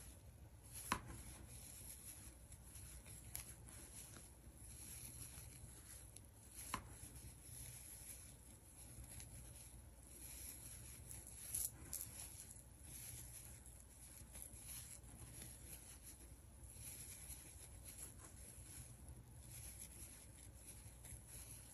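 Faint rustling and rubbing of yarn being worked with a crochet hook, with a few small clicks, as double-crochet cluster stitches are made.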